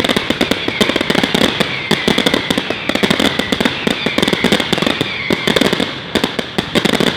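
Fireworks going off in a rapid, dense barrage of sharp bangs and crackles, several a second, with a steady high whistling tone and repeated falling whistles underneath.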